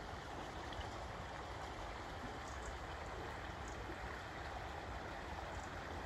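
Steady rush of river water spilling over a small weir.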